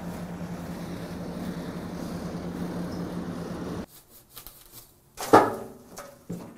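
Crane truck's engine running steadily with a constant low hum, cutting off abruptly about four seconds in. Then a few light clicks and one loud metallic clank that rings briefly.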